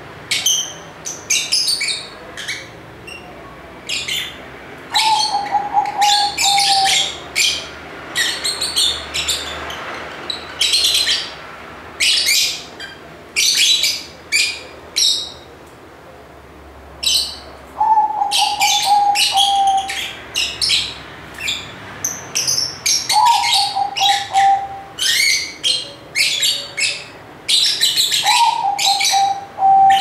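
Caged lovebirds chirping and twittering in quick, shrill bursts, again and again with short pauses. A lower, slightly falling trilled call comes in four times between them.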